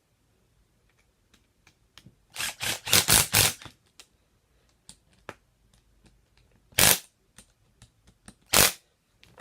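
Short bursts from a power tool running the head bolts down on a reassembled impact wrench: a quick cluster of four or five bursts about two seconds in, then two single bursts near seven and eight and a half seconds, with light clicks of handling between.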